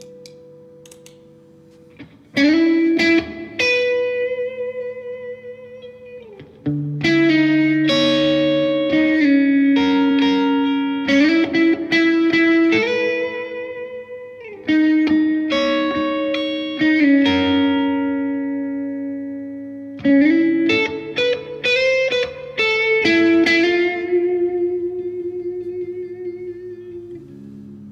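Maybach Teleman T61 electric guitar played through a small valve combo amp: chords and single notes picked and left to ring, in phrases with short pauses. The last chord fades out near the end.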